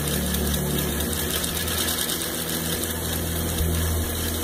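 Vintage Merrow three-thread serger, driven by a clutch motor, running steadily at speed with a fast, even clatter as it stitches and trims the edge of a thin fabric and runs on into chaining off the thread.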